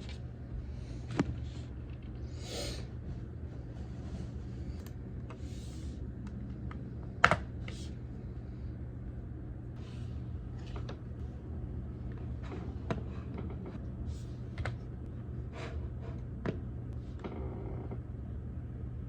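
Typing on a computer keyboard: key clicks at an irregular, unhurried pace, with a couple of much sharper strikes, over a steady low hum.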